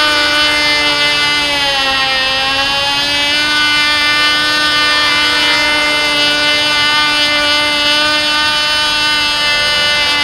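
Cox TD .049 two-stroke glow engine running flat out on a control-line model plane, a steady high-pitched buzz. Its pitch sags briefly about two seconds in, then recovers.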